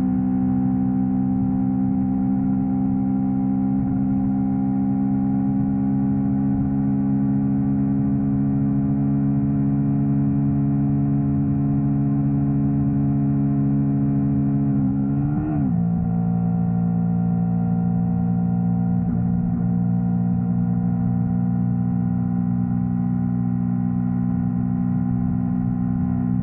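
Yamaha R3's parallel-twin engine running at steady cruising revs. About fifteen seconds in the engine note wavers briefly, then settles at a slightly different pitch.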